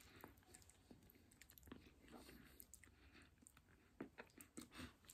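Near silence, with faint chewing and soft mouth clicks from a person eating a mouthful of noodles; the clicks come a little more often near the end.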